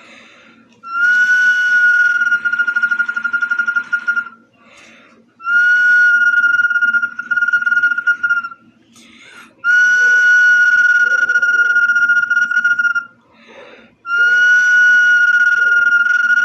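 Whistling bottle being blown, sounding four long, steady whistle notes on the same pitch, each about three seconds, with short pauses between them.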